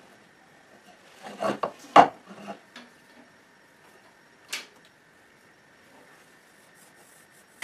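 Handling noise from a thin birch strip being marked with a pencil on a workbench: a cluster of light wooden knocks about a second and a half in, the sharpest about two seconds in, then one short scrape just past halfway.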